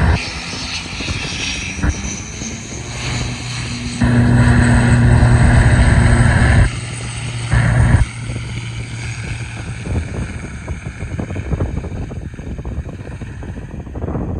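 Sky Express ATR 72-600's twin Pratt & Whitney PW127M turboprops running, a steady low propeller hum under engine noise. It swells to a louder stretch from about four to seven seconds in, then eases back.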